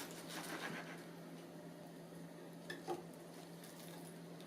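Quiet room tone: a steady low hum with a couple of faint clicks about three seconds in.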